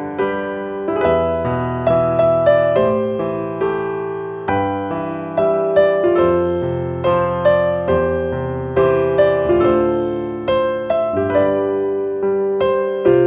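Background music: a piano or electric piano playing a gentle melody over chords, the notes struck and left to ring.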